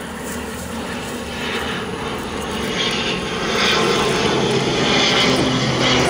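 An engine drone growing steadily louder, with a low steady hum setting in about four seconds in.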